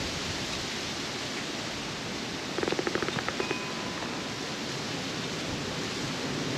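Steady outdoor rushing noise, with a brief rapid rattle of clicks, about ten a second, for roughly a second midway.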